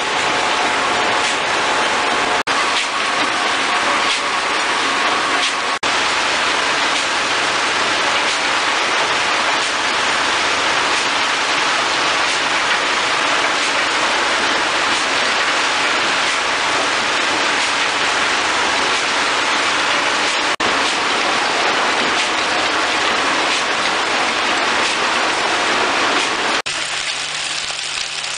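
Coal washing plant machinery running: a loud, steady rushing din of conveyors with wet coal pouring through chutes. About a second and a half before the end it cuts to a quieter steady machine hum.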